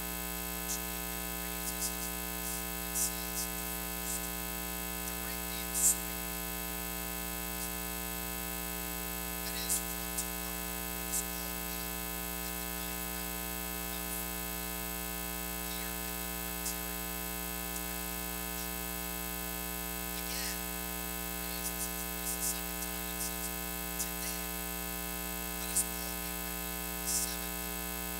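Steady electrical mains hum and buzz with many overtones, broken by scattered short clicks and crackles, the loudest about six seconds in. No speech comes through it.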